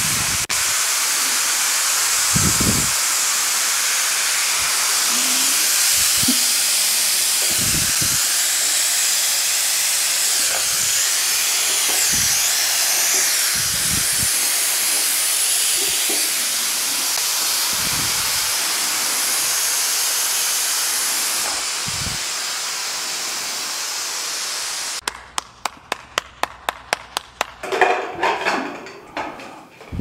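Six aluminium pressure cookers on gas burners whistling together: a loud, steady hiss of steam venting past their whistle weights. About 25 seconds in it cuts off abruptly, followed by a quick run of clicks and then metallic clattering as a cooker is handled and opened.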